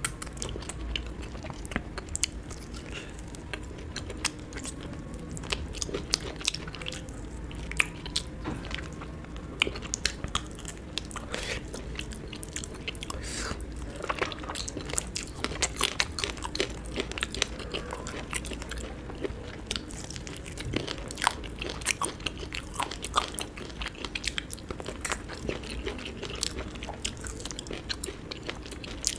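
A person chewing and biting food close to the microphone, with many short, sharp mouth clicks at an uneven pace.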